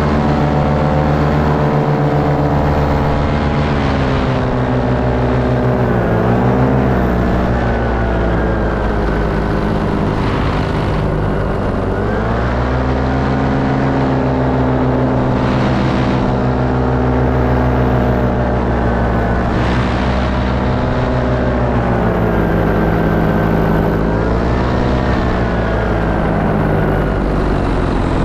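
Paramotor engine and propeller running loudly at close range in flight. The pitch dips and climbs back about three times as the throttle is eased and opened again.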